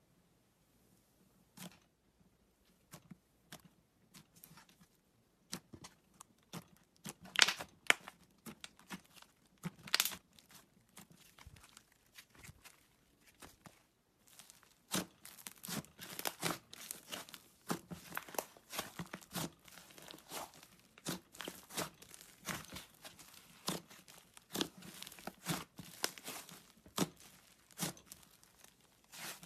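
Slime being squished, stretched and poked by hand, giving sticky crackles and pops. They are scattered at first and come thick and fast from about halfway.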